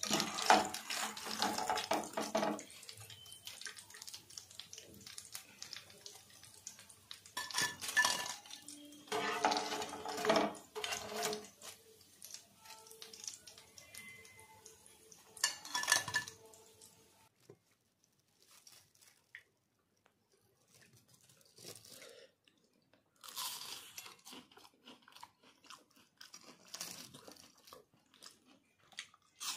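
Bread rolls deep-frying in hot oil, sizzling and crackling, with a wire skimmer clinking in the pan. After a near-quiet stretch, crunchy bites into a fried roll and chewing.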